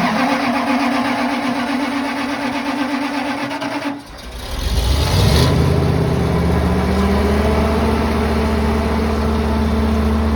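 Natural-gas standby generator starting: the starter motor cranks with a steady whine for about four seconds, then the engine catches, speeds up and settles into a steady run.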